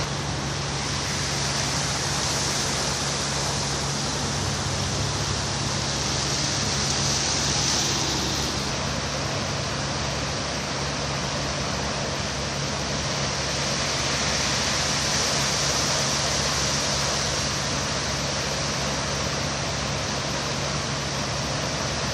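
Steady rush of floodwater pouring across a street from a flooded storm drain, with a low steady hum underneath.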